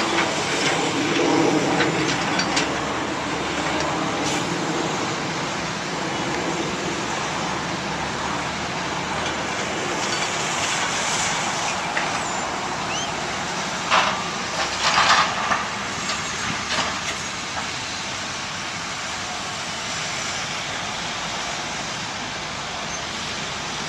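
Heavy construction equipment diesel engines running steadily, with a cluster of sharp clanks and bangs about two thirds of the way through as concrete chunks are handled.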